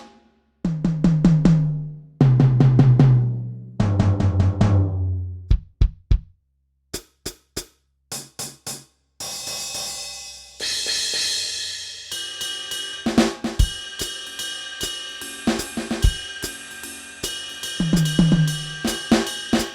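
Turbo Electronic TDX-16 electronic drum kit playing its Jazz preset sounds. Three quick rolls go down the toms from high to low, followed by a few sparse single hits. A cymbal crash comes about nine seconds in, then a groove of cymbal with snare and bass drum.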